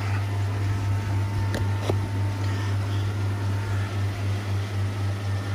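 Steady low electrical hum of a koi pond's pumps and filtration equipment running, with a couple of faint clicks a little under two seconds in.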